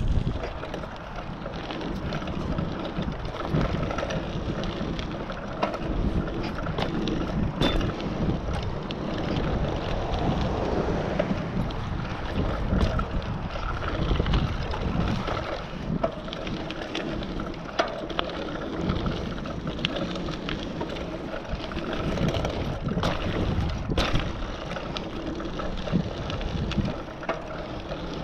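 Mountain bike ridden fast around a dirt pump track: wind rushing over the camera microphone and knobby tyres rolling on gravelly dirt, swelling and dipping over the rollers and berms. A few sharp clicks from the bike come through, about 8 seconds in and twice more near the end.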